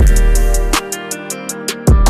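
Background music with a heavy bass and drum beat; about a second in the bass and drums drop out, leaving the melody alone, and return with a hit near the end.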